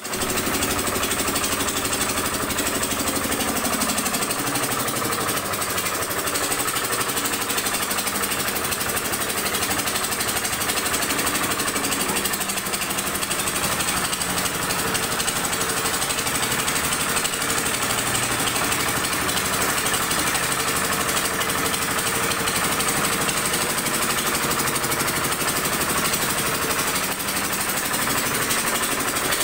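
Small vibratory 'baby roller' running with its vibration on, a steady fast rattling engine-and-drum noise, as it compacts and levels freshly laid paving blocks.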